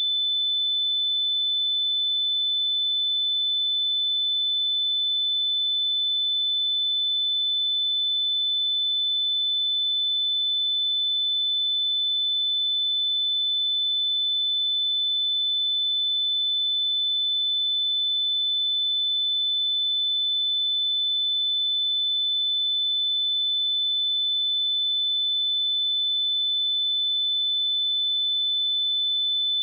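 A steady pure sine-wave test tone at 3512 Hz, held at one pitch and level, a high continuous beep.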